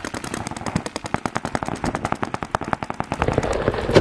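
Paintball markers firing in rapid strings of shots, roughly ten a second, during a speedball game.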